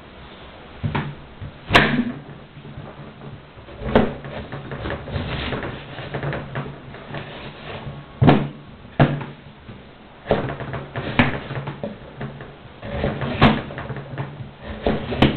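Kitchen knife cutting carrots on a wooden cutting board: irregular sharp knocks as the blade strikes the board, a second or few apart and some much louder than others, with softer cutting sounds between.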